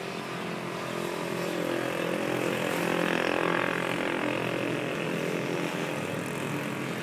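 A vehicle engine running steadily, swelling a little in loudness about three seconds in and then easing back.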